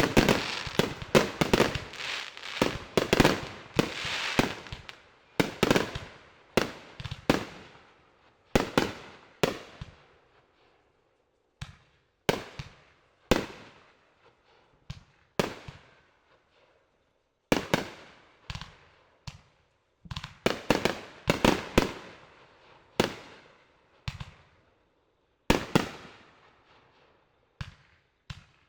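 Fireworks bursting: a rapid volley of bangs for the first few seconds, then single and paired bangs about a second apart with short lulls, each bang trailing off in echo.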